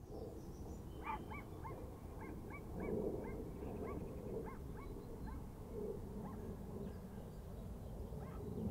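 A dog barking in a run of short yaps, about two or three a second, over a steady low rumble.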